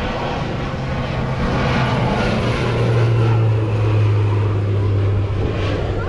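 Crop-duster airplane's propeller engine passing low overhead: a steady engine tone that grows loudest about three seconds in and drops in pitch as the plane goes by.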